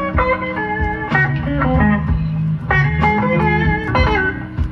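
Live slow electric blues: an electric guitar plays a single-note fill with bent notes over a steady bass and band accompaniment, between sung lines.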